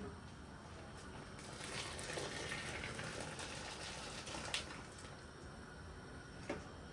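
Water running for a few seconds, with two light knocks, the second near the end.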